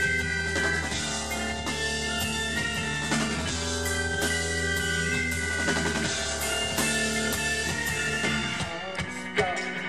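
Live rock band playing an instrumental passage: electric guitar chords over a steady drum-kit beat. Near the end the bass drops out for a short break.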